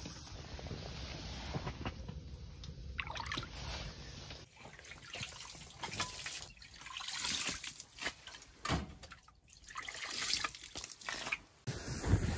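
Meltwater and slush sloshing and trickling on the flooded ice floor of a hot tent, an irregular splashy noise.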